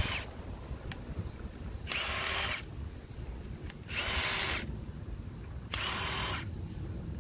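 Cordless power tool running the injector hold-down bolts out of a Mercedes E320 CDI diesel engine, in short bursts of about half a second, one roughly every two seconds.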